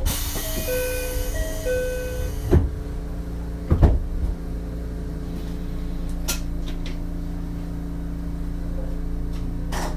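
A two-note electronic chime on board an Ichibata 7000-series electric railcar, sounding twice over a hiss of air, then two heavy thuds of the doors closing. The car's steady humming drone follows as it prepares to depart.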